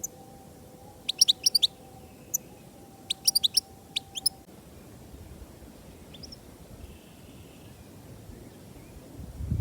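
European goldfinch calling: three or four quick clusters of high, twittering chirps in the first half, then only a single faint chirp over a low background rumble that swells near the end.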